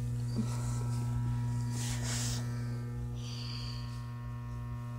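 Steady electrical mains hum with a stack of even overtones, with a couple of faint soft hissing rustles in the middle.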